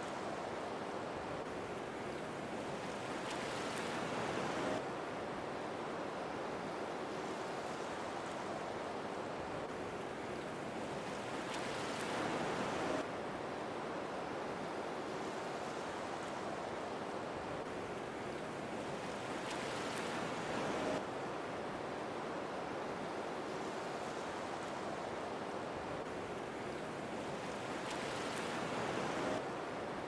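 Waterfall's steady rushing of falling water. It swells a little and drops back suddenly about every eight seconds.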